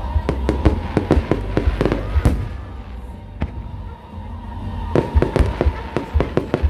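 Fireworks display: rapid bangs and crackles in quick succession. They thin out for a second or two around the middle, then come thick again.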